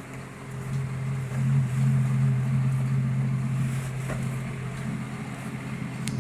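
Engine of a Casagrande drilling rig running steadily with a low, even drone, growing a little louder about a second in. A faint click near the end.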